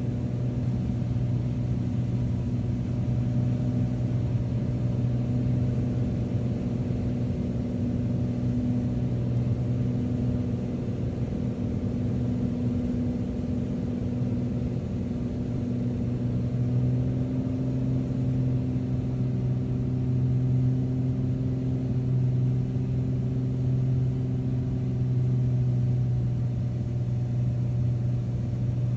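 Beechcraft V-tail Bonanza's single six-cylinder piston engine and propeller droning steadily, heard from inside the cockpit, with a slight rise in pitch about two-thirds of the way through.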